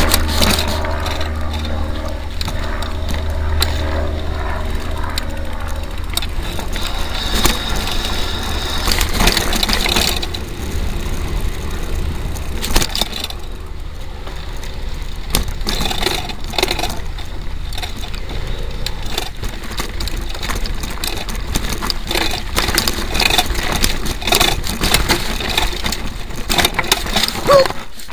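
Mountain bike ridden fast down a dirt trail, heard through a camera mounted on the front of the bike: wind rumbles on the microphone, and the bike and mount rattle and knock steadily over the bumps. The wind rumble is heaviest for the first few seconds.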